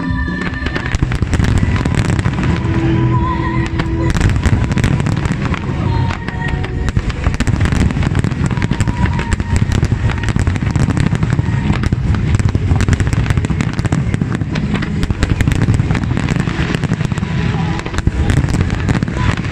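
A dense barrage of aerial firework shells bursting, many bangs a second over a continuous low rumble and crackle. Show music plays underneath, fading from hearing in the first few seconds.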